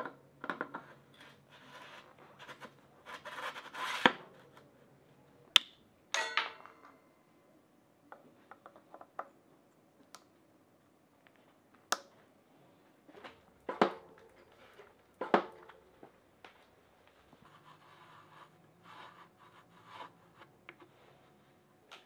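Mountain bike parts being handled during assembly: scattered sharp clicks, knocks and scrapes, with an occasional metallic clink that rings briefly.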